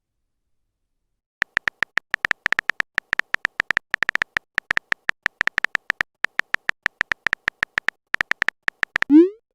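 Phone-style keyboard typing sound effect: a long run of short identical high beeps, several a second and unevenly spaced, starting about a second and a half in. Near the end a quick sound sweeps up in pitch.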